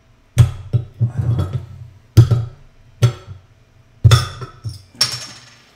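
A series of loud, sharp percussive hits, each with a deep thud and a short ringing tail, coming about once a second with a few quick doubles.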